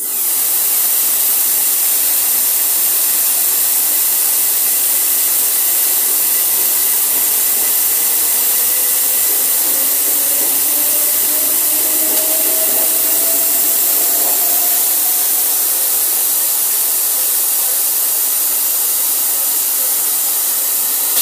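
Loud, steady hiss of compressed air venting at the coupling of two Class 377 Electrostar units as they uncouple, with a faint rising whine beneath it around the middle as the units draw apart.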